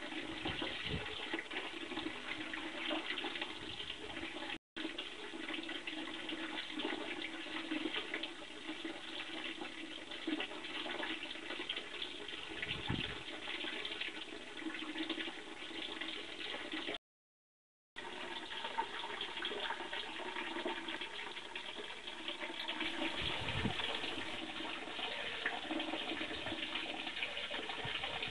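Steady running and splashing water in a small koi pond, with a few soft low thuds. The sound cuts out completely twice, briefly, about four seconds in and again about two-thirds of the way through.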